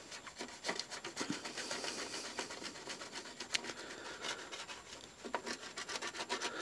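Toothbrush bristles scrubbing nitro-fuel-soaked paint off a clear Lexan RC car body shell, in soft, irregular scratching strokes as the paint is stripped.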